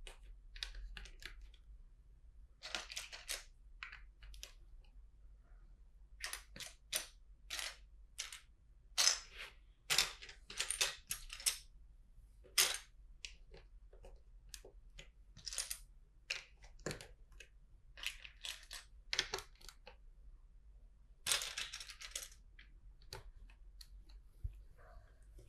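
Plastic LEGO bricks and plates clicking and rattling in irregular bursts as pieces are picked through in a pile and handled while building, with a longer clatter near the end.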